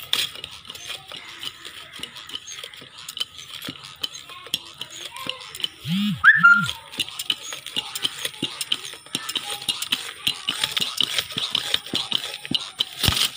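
Bosig foot pump being pedalled to inflate a bicycle tyre: repeated clicks and rattles from the pump's pedal mechanism. About six seconds in, two short loud sounds rise and fall in pitch.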